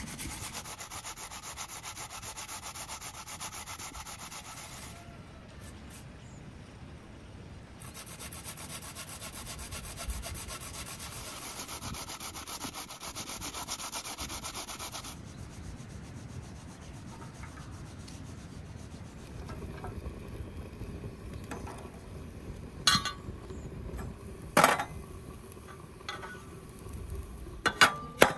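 A peeled potato scraped down a metal box grater, a steady run of rasping strokes in two bouts. Later come a few sharp clicks.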